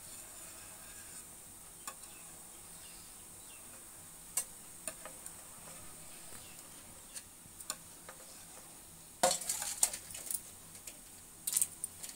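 A knife scraping and tapping against a steel plate while it loosens the edges of roti papads, scattered small clicks, then a cluster of sharper scrapes and clinks about nine seconds in and again near the end as the papads are worked off the plate.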